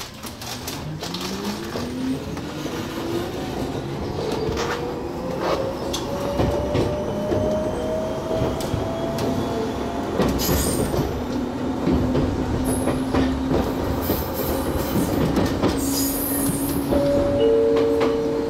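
Gakunan Railway electric train accelerating away from the station: the motor whine rises steadily in pitch for about ten seconds and then levels off, over the rumble of wheels on rail with scattered clicks at rail joints. There are brief high wheel squeals in the second half.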